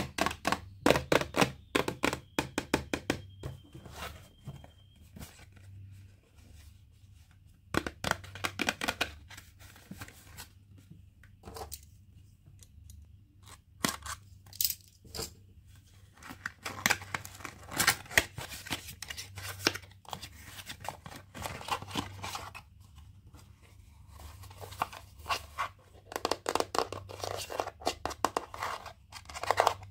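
Toy packaging being torn open and crinkled by hand: bursts of crackling and tearing with short pauses between.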